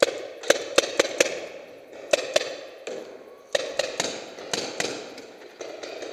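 Paintball markers firing in quick bursts of sharp pops, several shots within about a second at the start, then a pair, then a longer run of shots, each echoing in a large hall.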